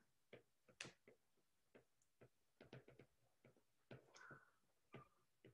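Near silence broken by faint, irregular ticks of a stylus tip tapping on a tablet's glass screen while handwriting.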